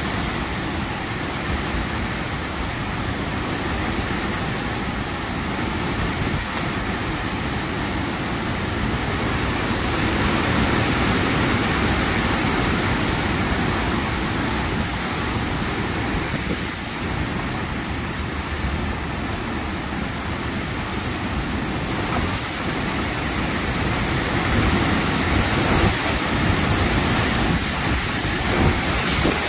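Storm of heavy rain and strong wind lashing trees: a steady rushing noise that swells louder near the end.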